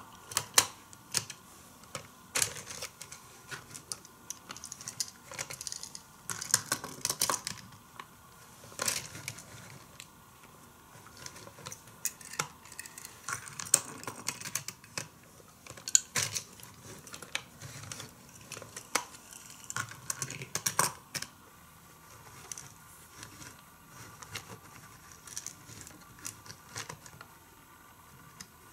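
Hot Wheels die-cast cars and the plastic Turbo Garage playset clicking and clattering as the cars are handled, loaded and run through the set: irregular sharp clicks and knocks, growing sparser after about twenty seconds.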